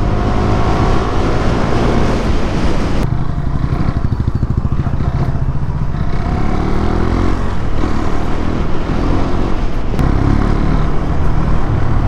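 KTM 390's single-cylinder engine running under way, slowing and then pulling up again through traffic, its pitch dropping and rising with the throttle. Wind rush over the camera is strong in the first few seconds at speed.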